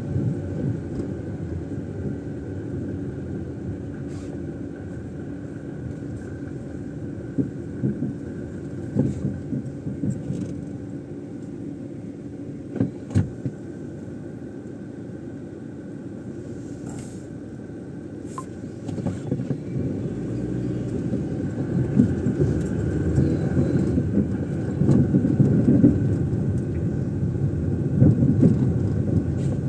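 A car driving on city streets: a steady low engine and road rumble, with a few sharp clicks and knocks, growing louder about two-thirds of the way through.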